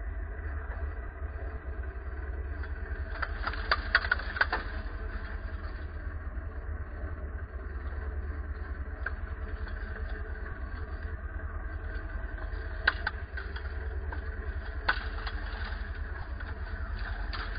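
Bergepanther recovery vehicle's engine running steadily with a low hum. A few sharp clicks sound over it: three close together about four seconds in, and single ones later.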